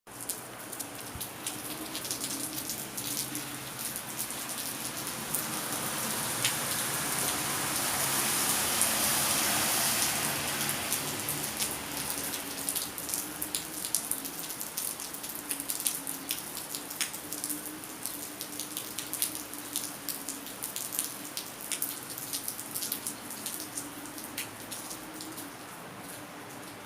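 Steady rain, with many individual drops ticking on a hard surface. The rain swells heavier for a few seconds early in the first half, then eases back to a steady fall.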